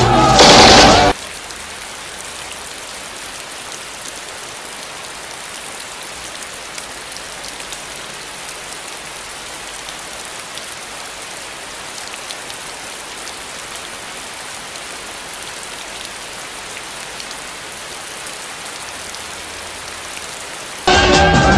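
A loud noisy burst cuts off about a second in, followed by a steady, even hiss with a few faint ticks, which stops shortly before the end.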